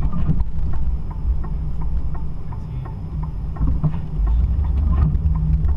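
Low, steady rumble of a running vehicle, with a run of light ticks, about three a second.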